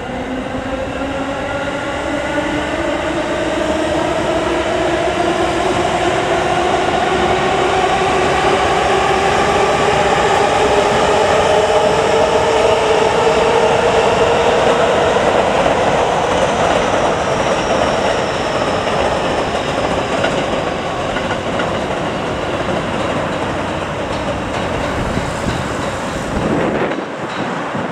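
Electric train's motors whining with a pitch that rises steadily for about fifteen seconds as the train gathers speed, over the rumble and clatter of its wheels on the rails. The sound is loudest midway and fades toward the end.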